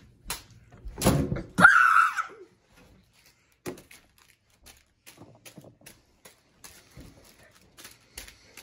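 A thump on a wooden tabletop about a second in as a tossed snack bag lands, followed by a short high squeal. Then faint crinkles and taps as the foil snack bag is handled on the table.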